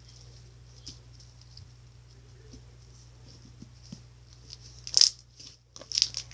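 Slime being squished and worked by hand, giving small sticky clicks and pops, with a few louder pops about five and six seconds in.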